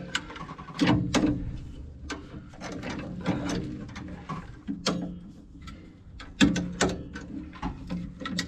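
Irregular metallic clicks and clanks of ratcheting hand-tool work on a track loader's bent front end, over a steady low hum.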